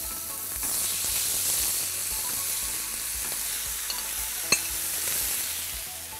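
Sliced beef fillet sizzling steadily in oil as it is tipped into a hot frying pan, with a metal spoon scraping the meat off the serving dish and one sharp clink about four and a half seconds in.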